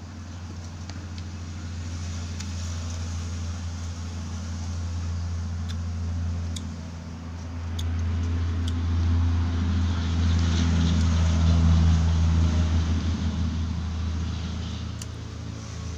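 A motor vehicle engine runs with a steady low hum that grows louder to a peak about twelve seconds in, then fades. A few light clicks of a metal spoon against a ceramic bowl.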